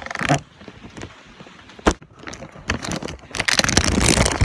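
Clear plastic bag crinkling and rubbing over a phone's microphone as the wrapped phone is handled: scattered clicks and one sharp knock, then dense crackling that builds about three seconds in.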